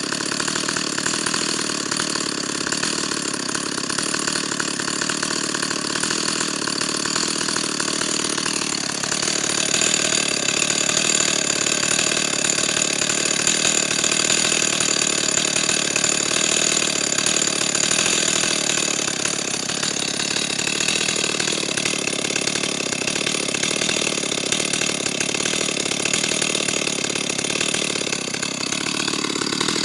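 Stihl 028 Super two-stroke chainsaw engine idling steadily while set down on the ground, growing somewhat louder about nine seconds in.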